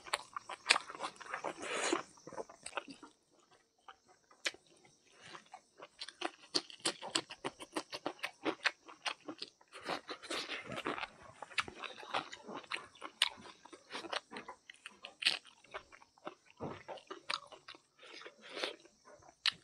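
Close-miked chewing and crunching of a mouthful of buffalo innards curry and rice, many quick irregular clicks from the mouth.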